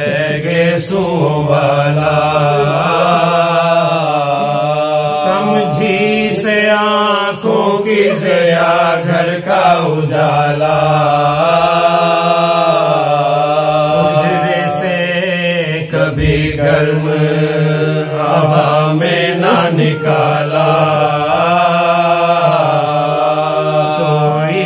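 Men chanting a Shia marsiya (Urdu elegy) unaccompanied: a lead voice sings long, ornamented lines while the other voices hold a steady low note beneath.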